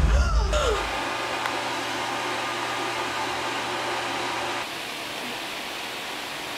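A sudden loud, deep boom that fades over the first second, with a falling cry in it. Then a steady rushing noise with a low hum, which drops to a fainter hiss about four and a half seconds in.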